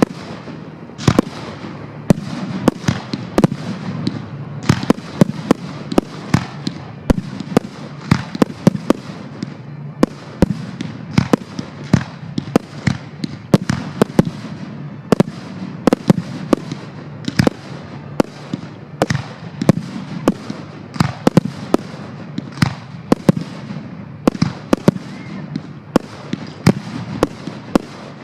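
Fireworks display: a rapid, irregular run of sharp bangs, often two or more a second, over a continuous background rumble and crackle.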